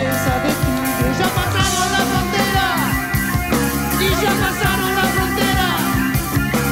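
Live rock band playing an instrumental stretch: electric guitar, bass and drums, with a few notes sliding in pitch about halfway through.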